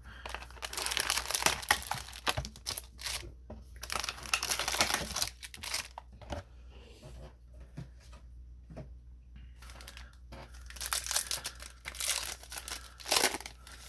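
Yu-Gi-Oh trading-card packaging being opened: foil wrappers and plastic crinkling and tearing in several bursts of a second or two, with quieter handling between.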